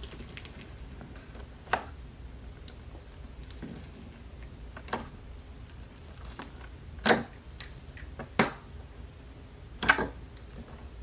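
Slime being kneaded and pressed by hand as clay is mixed in, giving irregular sticky clicks and pops, about six clear ones a second or two apart.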